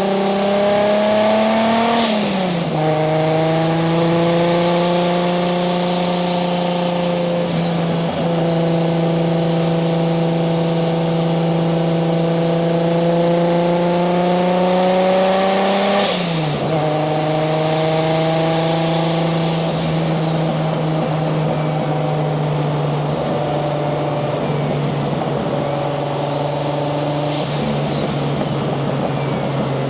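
Turbocharged 1JZ-GTE VVTi straight-six of a Nissan 240SX under way, its engine note slowly climbing while a high turbo whistle rises with it. The pitch drops sharply about two seconds in and again about halfway through, with the whistle falling away each time. The last third is a steadier cruise with a brief whistle near the end.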